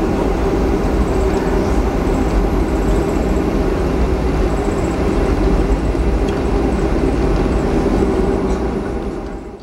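Cabin noise inside a Boeing 737-300 rolling along the taxiway: a steady rumble of the CFM56 engines and the wheels on the ground, fading out near the end.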